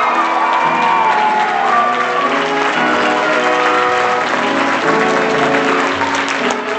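Stage-musical curtain-call music playing over steady audience applause.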